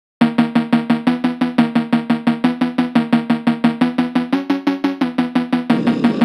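Background music starts abruptly: a fast, even run of sharply struck pitched notes, about five or six a second, with a noisy swell building near the end.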